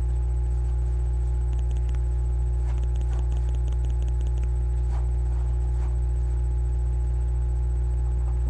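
A steady low hum runs under the window and is the loudest sound. Over it come a few faint, irregular scratchy strokes of a comb back-combing a raised section of hair.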